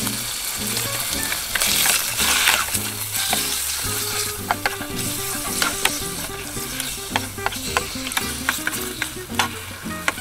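Sliced pork sizzling in sesame oil in an aluminium mess tin, stirred with wooden chopsticks that click against the tin; the clicks come more often from about four seconds in.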